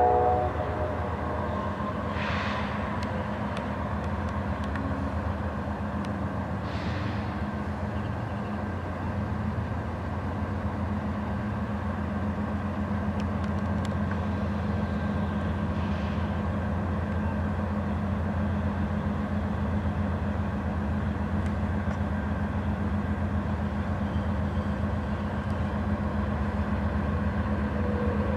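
Diesel freight locomotives' engines running with a steady low drone.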